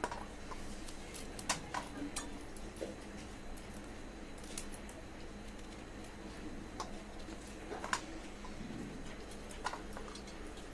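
A knife cutting pointed gourds (potol) held in the hand, with about eight scattered sharp clicks as the blade goes through and the cut pieces drop onto a steel plate.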